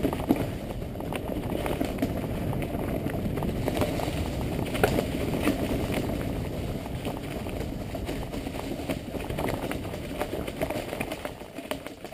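Mountain bike descending a rough dirt trail at speed: tyres rolling over packed earth, leaves and stones under a steady rumble, with frequent short knocks and rattles as the bike hits bumps.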